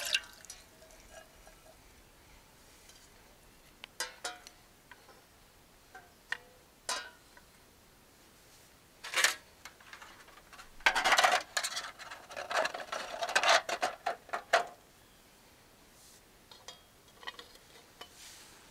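Cookware being handled: scattered metal clinks and knocks, with a longer run of clattering a little past the middle.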